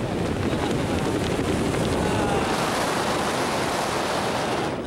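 Wind rushing over the camera microphone during a tandem skydive under an open parachute canopy, a steady dense rush of air that drops away sharply near the end.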